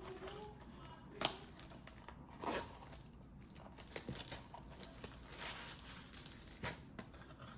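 Faint rustling and crinkling of packaging, with a few sharper crackles every second or so, as a small accessory from a drone combo box is unwrapped.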